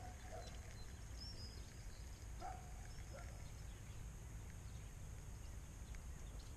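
Quiet rural pond ambience: a few short, faint distant animal calls and small high bird chirps over a steady low rumble.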